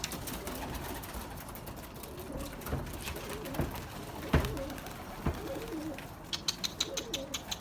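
Domestic pigeons cooing, with several dull knocks through the middle and a quick run of sharp clicks near the end.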